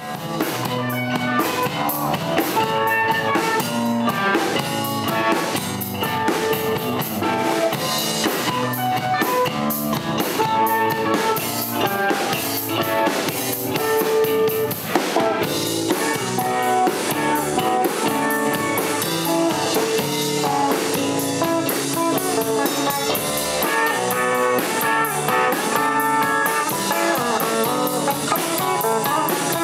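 Live rock band playing: electric guitar, bass guitar and drum kit together.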